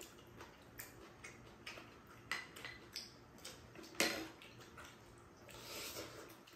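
Spoons and chopsticks clicking and scraping against small ceramic bowls while eating, a scatter of light clinks with one louder clink about four seconds in.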